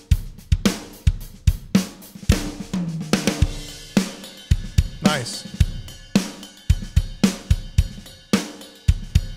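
Sampled drum kit (Steven Slate Drums 5) playing a steady groove of kick, snare, hi-hat and cymbals. It runs through a Wes Audio Dione SSL-style VCA bus compressor, which is being compared before and after its harmonic distortion is engaged.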